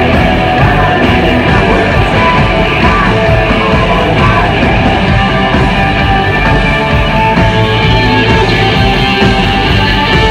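Hard rock band playing live at high volume: electric guitar over drums, with no break in the music.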